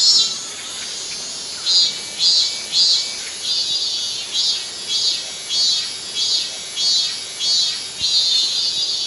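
Cicada song: a steady high buzz that swells in regular pulses, about two every second.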